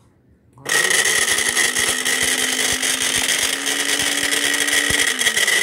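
Cosmos CB-282P plastic blender running empty: the motor starts under a second in, spins up and runs steadily with a high whine over a lower hum, very loud and noisy, then is switched off near the end and winds down.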